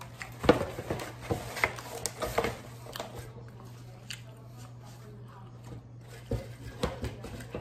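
A paper napkin and a cardboard pizza box being handled: a quick run of crackles and taps in the first two seconds or so, then two more sharp taps near the end, over a faint steady low hum.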